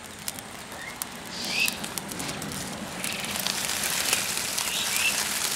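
Dry leaves catching fire and crackling, a dense run of small pops and snaps over a hissing rush that grows louder after about the first second.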